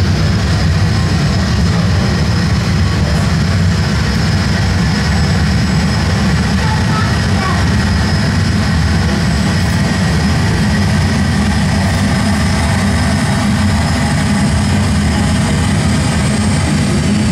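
Aircraft engine sound effect played over the model airport's loudspeakers for a landing model plane: a loud, steady low rumble.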